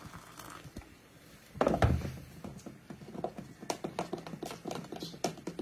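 An electric kettle set down with a thump about a second and a half in, then a spoon stirring ground coffee and hot water in a cup, clicking against the side in quick, irregular taps.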